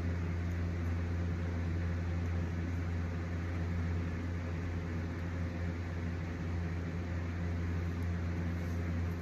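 Steady low hum at one constant pitch with overtones, like a running motor or fan, unchanging throughout.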